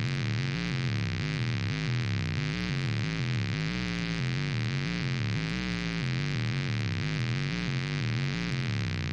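Low droning guitar tone through a PFZ Impulse frequency-modulation pedal, its pitch sliding up and down in a steady repeating wobble.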